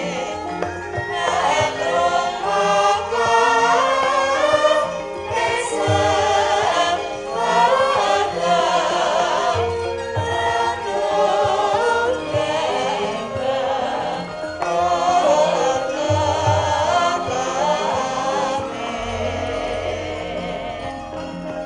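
Javanese gamelan music with a group of singers singing together over sustained metallic tones, and deep low strokes every few seconds.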